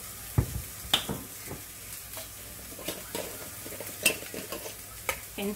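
A handful of sharp clicks and knocks as a plastic spice bottle and a glass jar of black pepper are handled and set down on a kitchen counter beside a glass mixing bowl, the loudest about four seconds in. Under them is a steady low hiss of onions frying in a pan.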